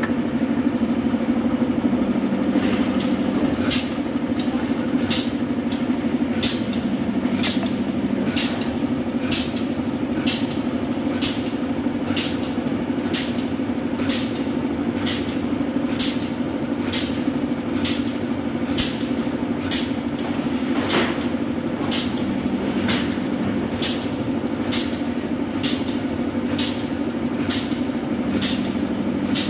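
Pneumatic spot welding machine welding a steel almirah panel: the air-cylinder electrode fires in a quick, even rhythm of short sharp strokes, about three every two seconds, over a steady machine hum.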